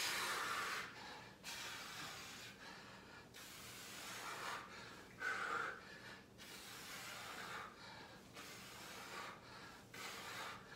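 A man breathing hard through repeated resistance-band squats, one noisy breath about every second and a half.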